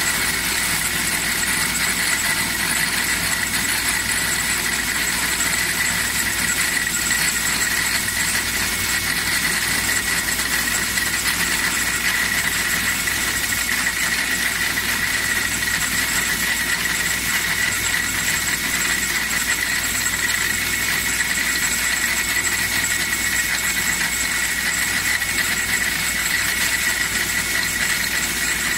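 Automatic wood-handle lathe running, cutting a wooden blank into a handle, with its spinning sanding brush and drill working alongside. A steady mechanical noise with a constant high whine.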